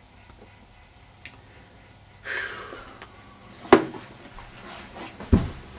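Close handling noise: a breathy rustle about two seconds in, then a few sharp knocks, the loudest near the middle and another near the end.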